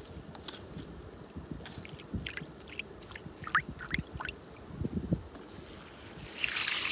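River water splashing and dripping in short scattered bursts, with a few knocks, then a louder rush of splashing near the end.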